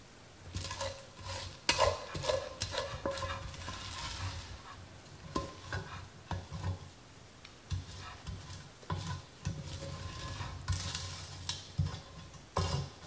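Wooden spatula scraping and knocking sticky marshmallow-coated rice cereal out of an enamelled Dutch oven into a glass baking dish: irregular scrapes and clunks, some with a brief ringing from the pot.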